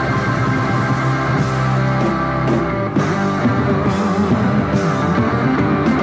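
Live rock band playing a loud instrumental guitar jam: electric guitars over bass and drums, the long guitar solo section at the end of the song.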